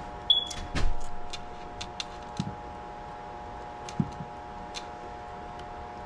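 Handling noise while working in a sheet-metal furnace cabinet: a short ringing click, then a knock about a second in, then a few scattered sharp clicks, all over a steady hum.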